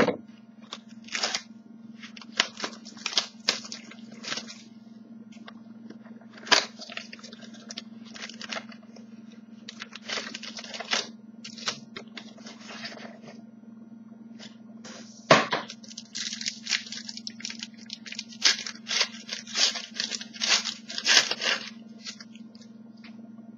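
Cardboard trading-card mini box being opened and its card packs torn open: irregular rustling, crinkling and tearing of wrappers and cardboard, with a couple of sharp louder snaps. A steady low hum runs underneath.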